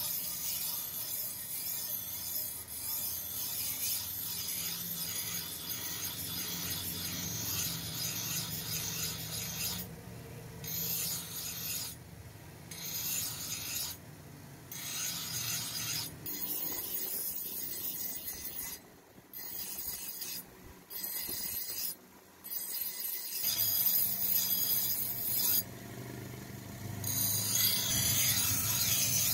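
Steel knife blade ground on a spinning bench grinding wheel: a steady rasping hiss of metal on the stone. From about ten seconds in, several short pauses break it as the blade is lifted off and set back on the wheel.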